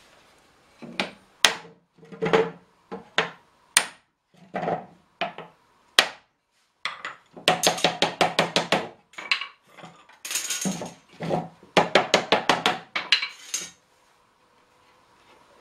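Hammer strikes on the metal hoops of a small cherry-wood barrel, driving the hoops down tight: single knocks at first, then quick runs of rapid taps from about halfway, stopping shortly before the end.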